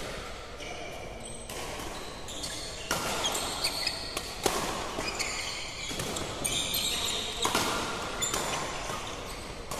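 Badminton rackets striking a shuttlecock in a doubles rally: a string of sharp hits, roughly one a second, beginning about a second and a half in. Short high squeaks from court shoes come between the hits.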